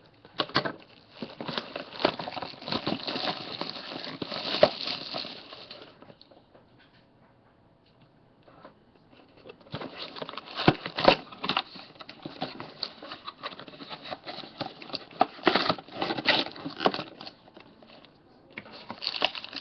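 Shrink-wrap and cardboard of a sealed trading-card box being torn, crinkled and opened by hand: a run of crackling and rustling with scattered clicks, a pause of a couple of seconds about a third of the way in, then more crackling.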